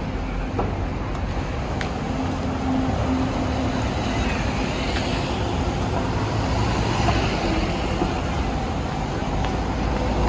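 City road traffic with buses and cars going by close to a pavement: a steady rumble of engines and tyres with a low engine hum.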